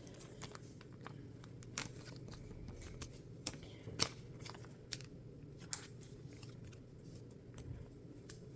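Faint, scattered clicks and rustles of Pokémon trading cards being handled, over a low steady hum.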